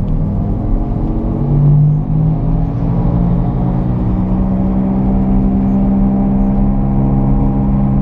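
A 2001 Hyundai Accent accelerating, heard from inside the cabin. There is a brief dip about two seconds in as the gear is changed, then a steady low growl settles in that grows with road speed: the sound of a badly worn right front wheel bearing.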